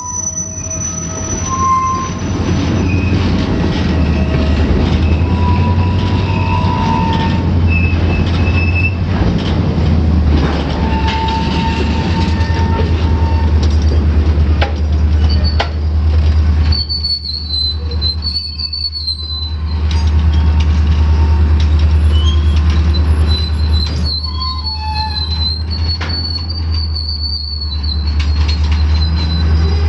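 Freight cars (autoracks, boxcars and tank cars) rolling past close by over a steady low rumble, their wheel flanges squealing on the rail in wavering high tones. The squeal turns shrill about halfway through and again near the end.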